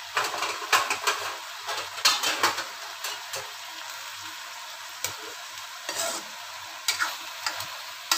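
Eggplant, tempeh and melinjo leaves sizzling in oil in a wok, with a spatula scraping and knocking against the pan in clusters, most busily in the first couple of seconds and again near the end.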